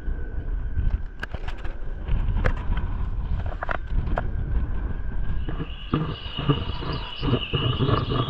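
Strong wind buffeting a GoPro's microphone, with a few sharp knocks as the camera is lowered on its line. About five and a half seconds in the sound changes abruptly to muffled underwater sound with steady high tones, as the camera goes under the water.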